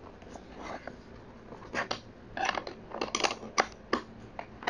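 Small flat steel wrench clicking and scraping on a chainsaw's bar nut as the nut is worked loose: a string of short, irregular metallic clicks.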